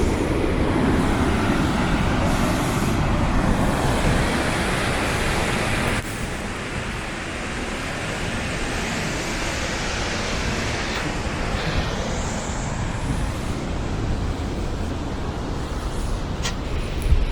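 Waterfall's steady roar of rushing water, dropping a little in level about six seconds in.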